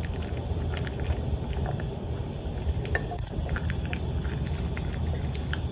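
Toy poodle puppy eating from a stainless steel bowl: scattered small crunches and clicks of food and bowl over a steady low rumble.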